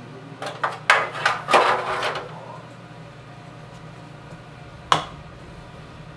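Foil coffee packets crinkling and rustling as they are handled and set down, a quick run of crackles lasting about two seconds. A single sharp click follows near the end, over a steady low hum.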